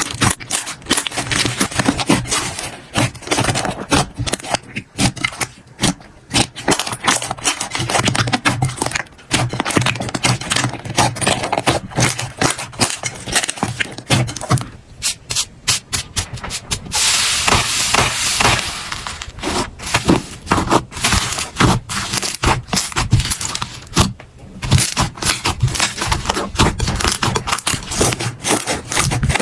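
Slime being squeezed, poked and stretched by hand, making a quick string of wet clicks, pops and crackles. About seventeen seconds in it turns to a denser crackling hiss for a couple of seconds.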